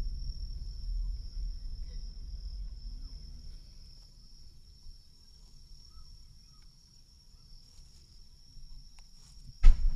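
Insects trill steadily on one high tone over low rumbling noise that fades out about halfway through. A single sharp, loud knock comes near the end.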